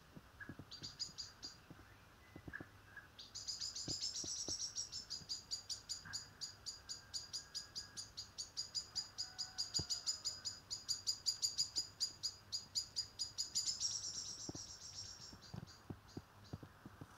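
Common blackbird giving a rapid series of high, sharp alarm notes, about five a second: a short bout about a second in, then a long unbroken run from about three seconds in that stops near the end.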